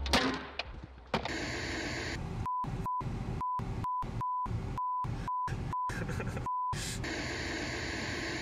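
A knock, then the LCD TV's sound breaking up: a hiss of static that keeps cutting out to dead silence, with about nine short high beeps in the gaps, before settling into steady static hiss. The picture breaking into static at the same time shows the set losing its signal after being bumped.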